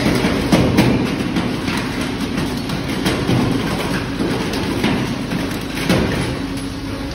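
Engine-cracking machinery running with a steady low hum while broken engine metal rattles through the chute and onto the conveyor, with irregular sharp metallic knocks every second or so.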